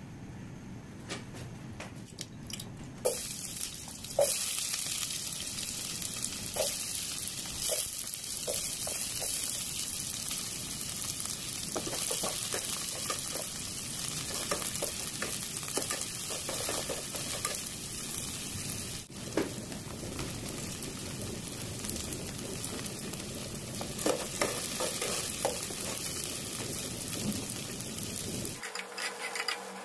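Chopped onions sizzling steadily in hot oil in a pot, the sizzle starting suddenly about three seconds in. A metal spatula scrapes and clinks against the pot now and then as the onions are stirred.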